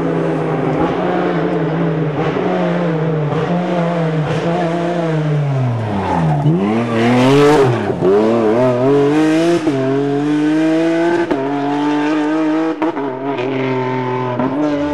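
Renault Clio V6 rally car's mid-mounted V6 engine at racing speed: its pitch drops steeply to a low point about six and a half seconds in as it brakes for a corner, then rises and falls in quick steps through gear changes as it accelerates away.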